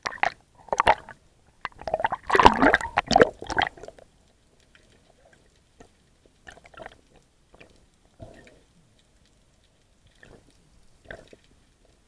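Underwater handling noise of a band-powered speargun and its shooting line: a dense run of crackling clicks and scrapes about two to four seconds in, then scattered short knocks and rustles.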